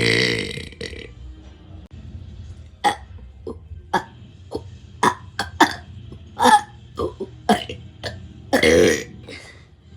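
A child burps loudly and long at the start. Then come scattered short clicks and knocks, and a second loud burst near the end.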